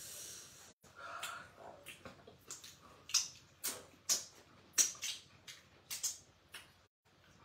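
Close, wet mouth sounds of eating spicy okra soup with swallow by hand: chewing and lip-smacking, a string of short sharp smacks about two a second.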